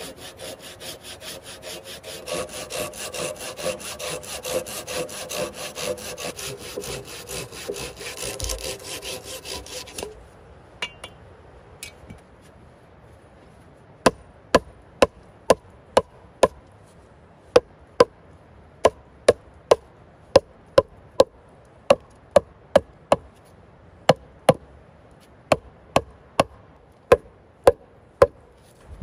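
A hand saw cutting through a thin log in quick back-and-forth strokes, which stop about ten seconds in. After a short pause, a hammer knocks on a short log section again and again, two or three sharp blows a second with a couple of brief breaks.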